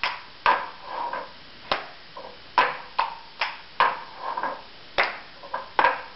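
Drinking cups knocked down on a table in a repeating rhythm for a cup rhythm game: sharp knocks with quicker, softer taps between them, the pattern going round again every second or so.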